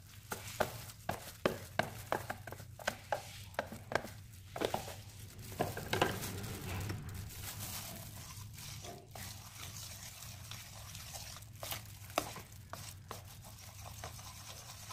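Batter being stirred in a bowl with a spoon, which clicks against the bowl in a quick, regular run for the first few seconds and then only now and then.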